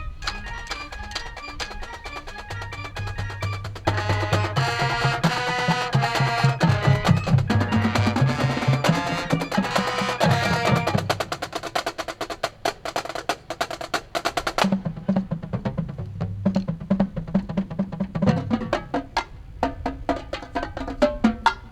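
Marching band playing a percussion-driven passage with rapid drum strokes. The band's pitched instruments come in with loud chords about four seconds in and drop out near eleven seconds, leaving the drums over low bass notes.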